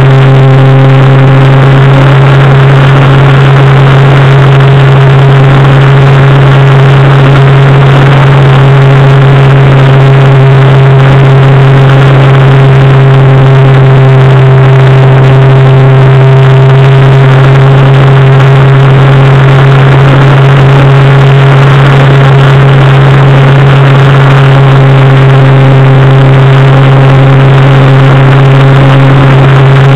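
Radio-controlled model Pilatus Porter's motor and propeller running steadily in flight at an almost constant pitch, with no change in throttle. It is very loud and close up, heard through a camera mounted on the plane.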